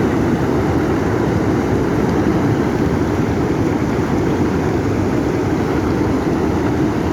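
Floodwater from heavy rain rushing past in a steady, unbroken noise, deepest and loudest in the low range.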